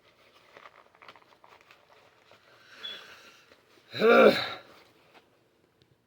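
Faint rustling and small clicks of gear being handled, a breath, then a short voiced groan about four seconds in.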